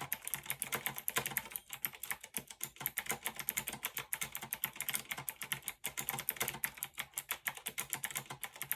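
Fast, continuous typing on a Fineday mechanical keyboard: a steady stream of key clacks, many strokes a second, without a break.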